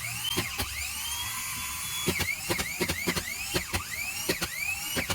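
A small electric motor whining as it spins up again and again, each time with a click and then a rising whine that levels off. The starts come close together from about two seconds in.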